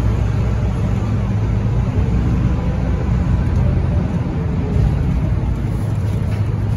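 Scania K230UB single-decker bus's five-cylinder diesel engine running steadily at low speed, heard from inside the cabin as the bus moves slowly, with the most energy in a low hum.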